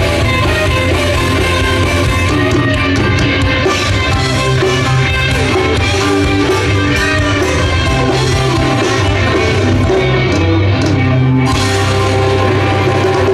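Rock band playing live: electric guitars over bass guitar and drum kit, steady and loud.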